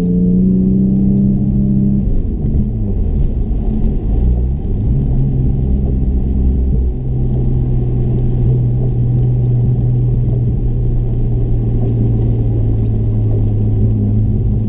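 Car engine running, its engine speed dropping and wavering about two seconds in, then settling to a steady idle after about seven seconds. It is being checked for misfires.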